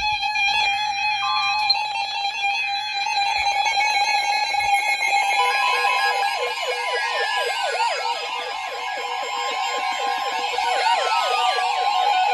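Weather radios sounding their alert alarms for an incoming severe thunderstorm warning: several steady high tones at once, joined about five seconds in by a warbling siren-like alarm and a further steady tone.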